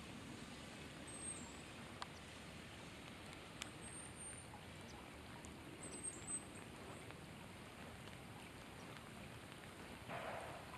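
Faint, steady rain falling on the lake's surface, with a few sharp ticks and some brief high chirps over it.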